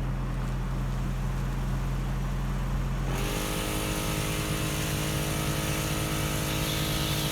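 Truck engine idling, then about three seconds in a Cong Rui 5.65 CFM portable air compressor (a Smittybilt 2781 clone) switches on and runs steadily with its motor drone and a high hiss. This is the start of the compressor pumping up a flat 40-inch tire.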